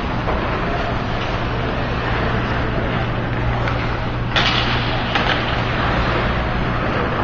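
Ice hockey rink sound: a steady low hum under skates scraping on the ice, with a sharp knock about four seconds in and louder scraping after it.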